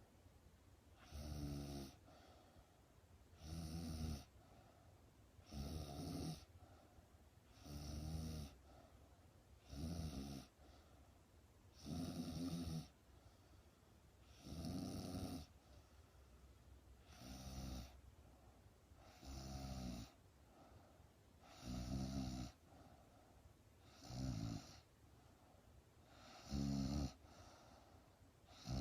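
A young woman snoring in her sleep, one snore about every two seconds, each lasting under a second, with quiet breathing between.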